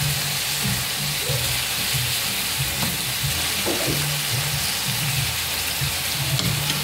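Chayote, pork and other vegetables sizzling in a frying pan while being stirred with a metal spatula; the sizzle is steady throughout.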